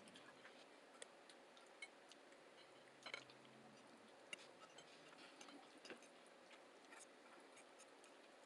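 Faint, irregular clicks and small taps from people eating, a cluster of them about three seconds in, over a faint steady hum.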